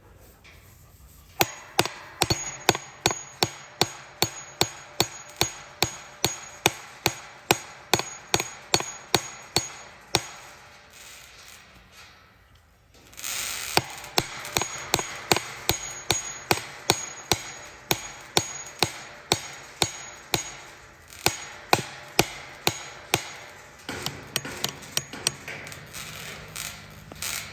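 Hammer blows driving a gate hinge pin into its drilled pilot hole in the post, about two strikes a second, stopping for a few seconds about ten seconds in and then starting again.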